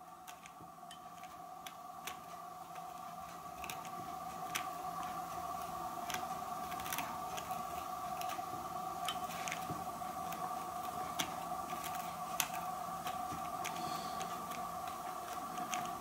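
A pointed pick teasing apart the wire braid shield of RG58 coax cable, making faint scratchy ticks at irregular intervals. A faint steady two-tone hum runs underneath.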